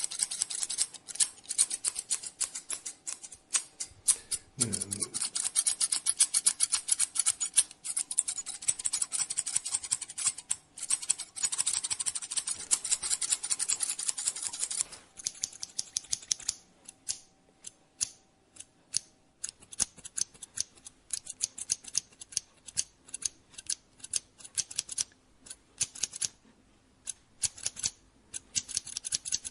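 Barber's scissors snipping hair in quick, crisp runs of snips, dense for the first half and then sparser and more spaced out.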